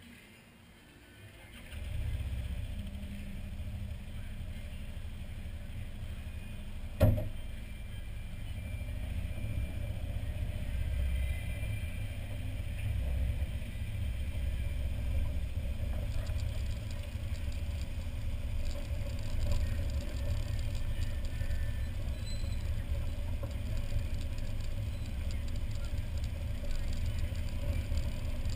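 Can-Am Spyder engine running at idle and low speed: a low steady rumble that comes in about two seconds in, with a single sharp click about seven seconds in.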